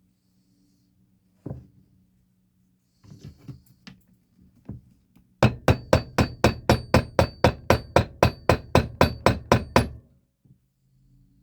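Hammer peening a copper rivet over its washer: a few lighter knocks, then a rapid run of about twenty sharp taps, roughly five a second, with a faint metallic ring, stopping a little before the end.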